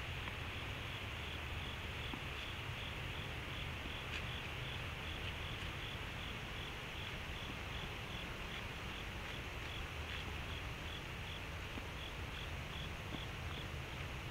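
An insect chirping in a steady rhythm, about two and a half short, high chirps a second, over the steady hiss of a trail camera's microphone.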